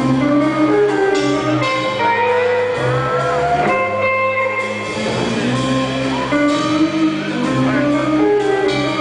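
Live band playing a blues-rockabilly number: electric guitar lines, some with bent notes, over plucked upright bass and drums.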